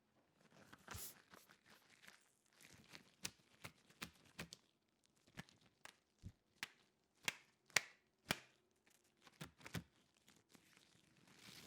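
Rubber balloon being handled, giving irregular sharp crackles and snaps of the rubber, some much louder than others, with no rush of air.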